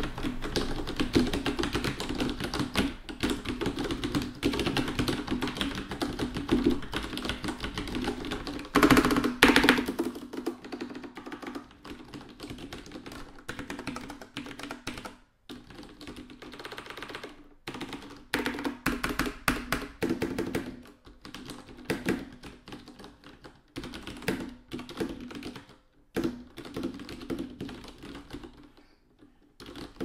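Typing on a Das Keyboard Model S Professional Silent with Cherry MX Brown switches, tactile but not clicky: a rapid run of keystrokes, with a louder burst of keys about nine seconds in. The typing then thins out, with short pauses between runs.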